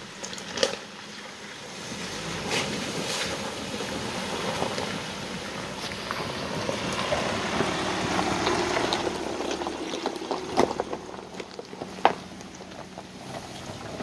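Karmann Dexter 560 AWD camper van (Ford Transit) driving through a shallow stream ford and up onto loose stones: water splashing and tyres crunching over gravel with the engine running, getting louder as it passes close by and then fading. Several sharp knocks of stones under the tyres stand out.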